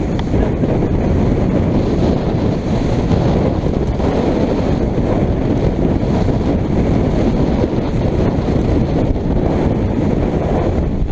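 Loud, steady wind blasting the microphone over the rush of water as a small motorboat runs through a rough head sea.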